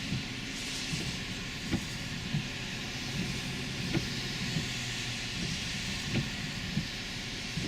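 Car driving on a road: a steady hiss of road and tyre noise, with short soft knocks repeating about every two-thirds of a second.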